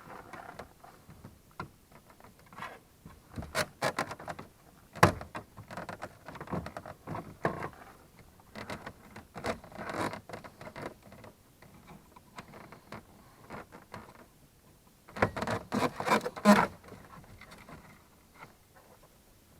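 Plastic trim cover on a truck's interior door panel being worked loose by hand and tool: scattered clicks, taps and scraping of plastic, with a quick run of louder clicks and snaps near the end.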